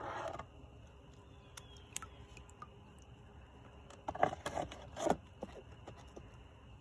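Plastic hive-top feeder lid being handled and set in place on the hive: light scrapes and a few soft knocks, with a cluster of louder knocks and scrapes about four to five seconds in.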